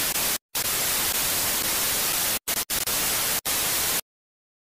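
TV static sound effect: a steady hiss with a few brief dropouts, cutting off suddenly about four seconds in.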